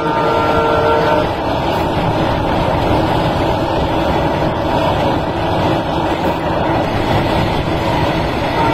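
A train running at speed: a steady, loud rumble and rush of wheels on rail, heard from an open carriage window. A faint steady whine stops about a second in.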